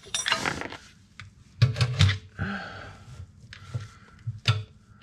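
A screwdriver prying at the edge of a Subaru 4EAT automatic transmission oil pan that is stuck fast with sealant: a scrape followed by several short, sharp metal knocks and clicks.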